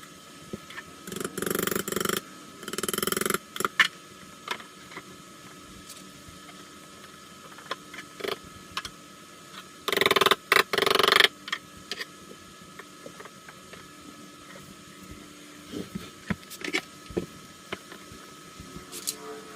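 Handling noises from assembling flat-pack furniture: scattered clicks and knocks, with short bursts of rustling or scraping, the loudest lasting about a second around the middle.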